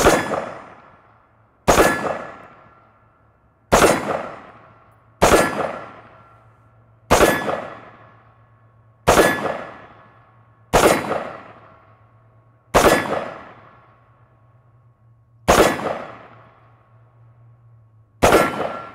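Stag 15 Tactical AR-15 rifle fired unsuppressed with 62-grain green-tip ammunition: ten deliberate semi-automatic shots, one about every two seconds. Each crack is sharp and rings out into a short echo.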